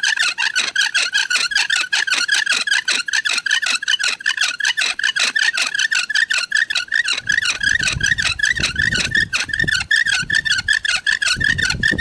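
Wooden bow drill squeaking rhythmically as the bow is sawed back and forth and the spindle spins against the wood, a wavering high squeal several times a second. Low rumbles join in from about seven seconds in.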